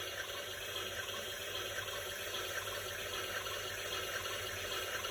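Toy washing machine playing its electronic water-filling sound effect: a steady hiss of running water.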